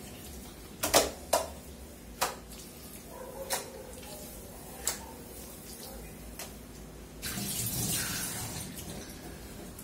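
A few sharp knocks in the first five seconds, then a kitchen tap running into a stainless steel sink for about two seconds as hands are rinsed under it, starting about seven seconds in.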